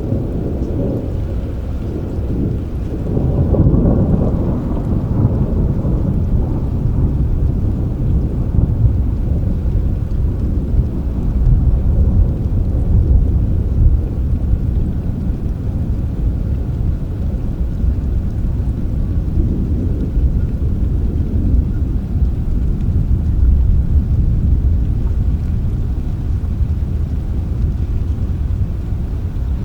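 Rain with low, rolling thunder. A roll of thunder swells about three to five seconds in, then a deep rumble carries on under the rain.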